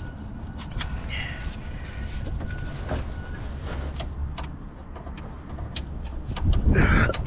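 Scattered light metallic clicks and clinks of hand tools and parts being handled, over a steady low rumble, with a louder noise near the end.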